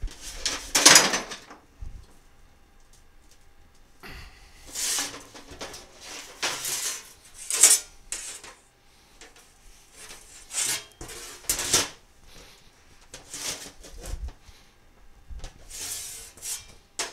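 A welded sheet-steel patch panel handled and flexed on a steel welding table to bend out a slight warp: irregular scraping and clattering bursts, each about half a second to a second long, with short quiet gaps between.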